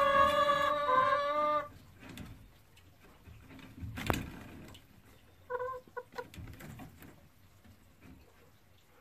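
A hen in a straw nest box, settled on the nest to lay, gives one long drawn-out call that ends about a second and a half in. A single sharp knock follows about four seconds in, then a few short clucks.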